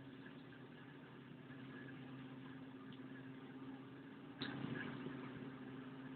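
A machine running with a steady low hum. A sharp knock comes about four and a half seconds in, and the hum is a little louder after it.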